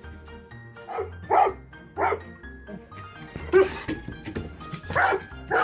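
A dog giving a series of short, separate barks over background music.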